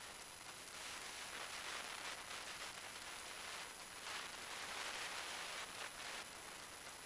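Faint steady hiss of the aircraft's headset intercom audio feed between transmissions, swelling slightly twice, with a thin steady high whine over it.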